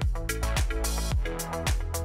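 Background electronic dance music with a steady beat: a low kick drum about twice a second with hi-hat ticks between, and a brief hiss swell about a second in.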